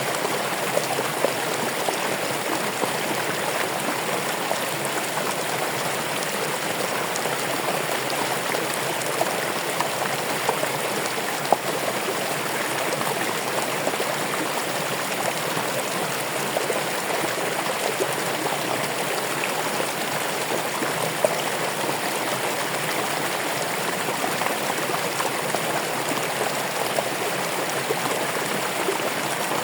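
Running water flowing steadily, a continuous splashing rush with occasional small splashes and drips.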